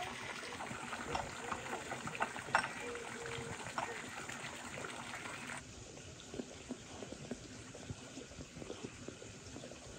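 Water pouring from a pipe into a pond, a steady trickling splash with a few light knocks mixed in; about halfway through it cuts off, leaving quieter outdoor ambience with faint ticks.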